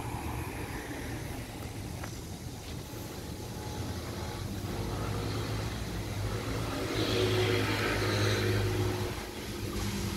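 A motor vehicle's engine running on the street, a low hum that grows louder through the middle and drops away shortly before the end.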